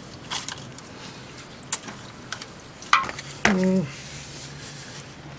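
A few short, sharp clicks and knocks of an oil filter wrench being tried on an oil filter too big for it, with a brief grunt-like voice sound about three and a half seconds in.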